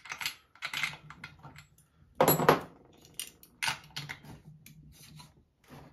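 Metal hand tools clinking and rattling against a chainsaw while its spark plug is being taken out, with one louder clatter about two seconds in.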